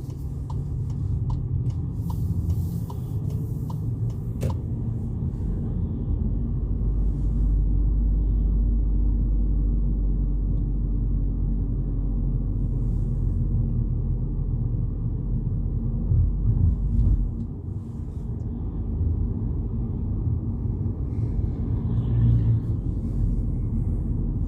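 In-cabin road and engine rumble of a 2022 Volkswagen Polo GTI with its turbocharged four-cylinder engine, driving on a small space-saver spare wheel. The steady low rumble grows louder for several seconds in the middle. A run of light, regular ticks, about two a second, sounds in the first few seconds.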